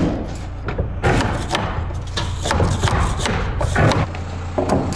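Irregular knocks and thuds against wooden wall framing, over a steady low hum.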